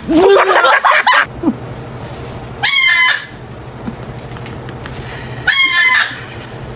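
Domestic fowl squawking: a loud burst of calls at the start, then two short, high calls about three seconds apart.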